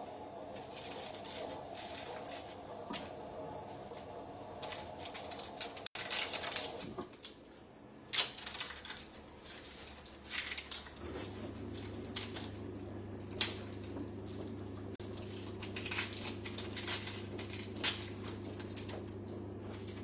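Dry onion skins crackling and rustling as onions are peeled by hand, in short irregular crackles and taps. A steady low hum runs underneath and changes in tone about eleven seconds in.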